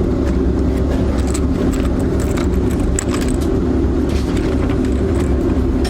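Metallic clicks of cartridges being pressed one by one into an AR rifle magazine, over a steady, loud low hum.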